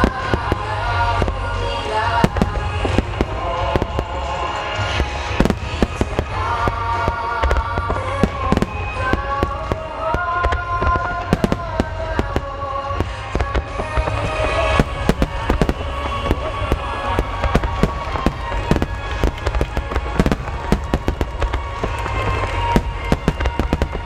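Starmine fireworks barrage: many aerial shells bursting in rapid, overlapping succession, with sharp cracks over a continuous deep rumble of booms. Music with long held notes plays alongside.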